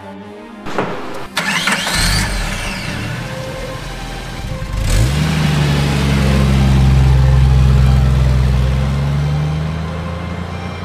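Kids' electric ride-on car in Rolls-Royce style, its built-in speaker playing an engine-start sound effect. Two clicks come about a second in, then simulated cranking, and about five seconds in a rev that settles into a steady engine hum.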